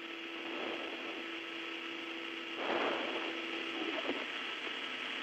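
Steady hiss with a low, even hum from the open air-to-ground radio link from the Soyuz cabin, with no one talking. A louder rush of noise comes about halfway through, and the hum drops out shortly after.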